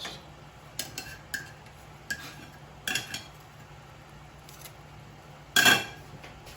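Metal utensil clinking against a cooking pan a few times while chicken pieces are set back into the sauce, with one louder, ringing clink near the end.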